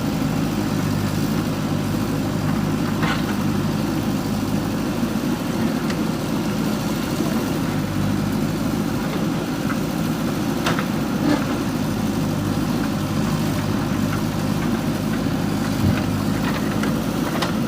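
JCB 3DX backhoe loader's diesel engine running steadily, with a few short sharp knocks three times.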